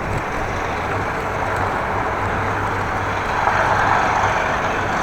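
Steady wind rush and road traffic noise heard while cycling beside a road, growing a little louder about three and a half seconds in.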